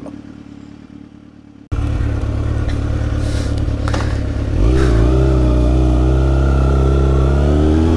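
Kawasaki Ninja ZX-6R's inline-four engine running under way, cutting in abruptly after a quieter second or so. About halfway through its pitch dips and rises again, then holds a steady note.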